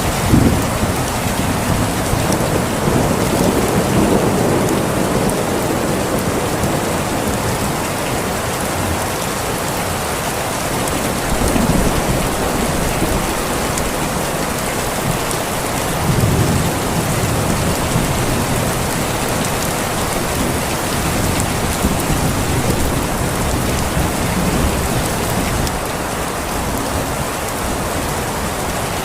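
Steady rain falling, with low rumbles of thunder swelling up several times.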